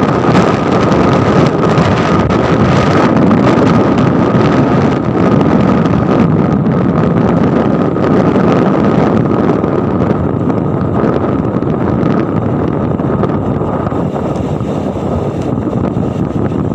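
Wind buffeting the phone's microphone with the rushing noise of a moving vehicle, loud and steady. A thin steady whine sits over it and fades in the last few seconds.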